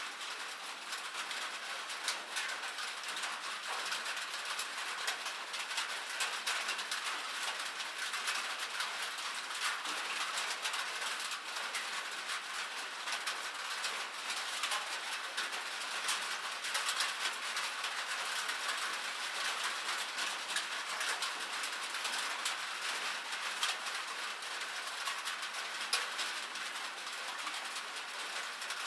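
Light rain falling steadily: an even hiss dotted with many small, sharp drop ticks.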